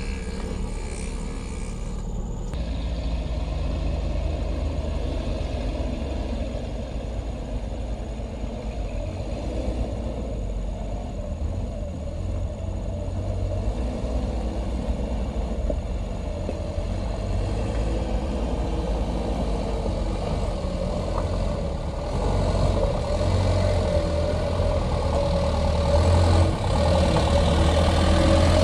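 Mitsubishi Fuso Canter truck's diesel engine pulling up a steep, rough dirt climb: a steady low rumble that grows louder as the truck draws near, rising in pitch near the end.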